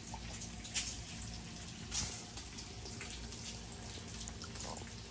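Burger patties sizzling in a frying pan: a steady hiss with a few louder crackles.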